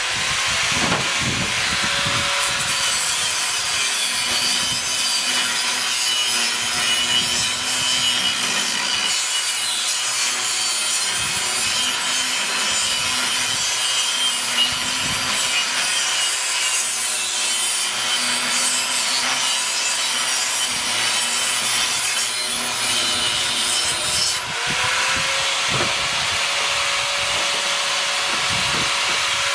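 Angle grinder with an abrasive cut-off disc cutting through the steel shell of a sealed AC compressor: a harsh grinding hiss over a motor whine. The whine climbs as the grinder spins up, drops in pitch as the disc bites into the steel a few seconds in, and rises again when the disc runs free about five seconds before the end.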